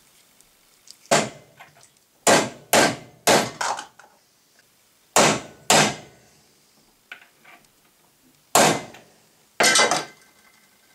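A hammer striking a metal socket set on a lawnmower wheel's hub, driving a greased ball bearing into the hub. There are about ten sharp metallic knocks in irregular groups of one to three.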